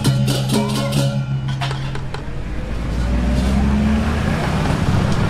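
Balinese gamelan of struck metallophones and drum playing a rhythmic passage that stops about two seconds in, followed by a motorcycle engine passing close by.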